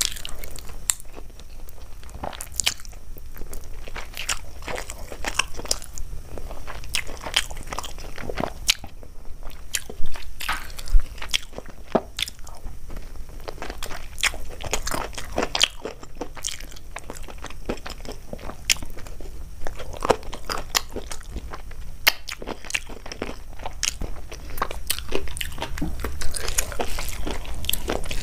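Close-miked eating: a person chewing and biting food, with many short crunchy clicks and mouth sounds in an irregular patter, and two louder crunches about ten and eleven seconds in.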